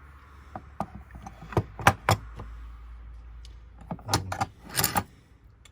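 Steel water pump pliers handled between pairs, with a run of sharp metallic clicks and clacks: a few single clacks in the first two seconds, then two quick clusters of clinks near the end.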